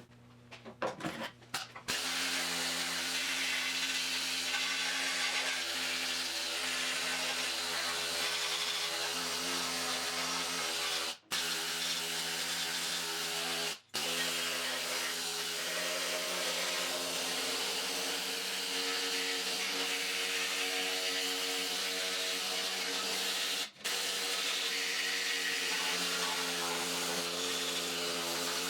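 Pneumatic needle scaler running steadily, its needles hammering rust and scale off a steel car frame. It starts about two seconds in after a few short knocks and breaks off briefly three times.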